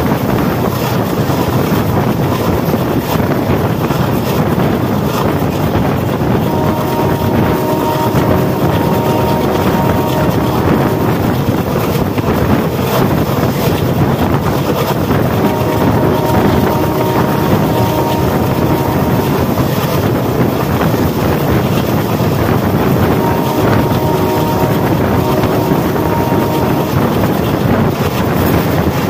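Steady wind and running noise of a fast-moving train, heard from alongside the train, with the WDM3A diesel locomotive's horn sounding three long blasts about eight seconds apart, each broken by a short gap.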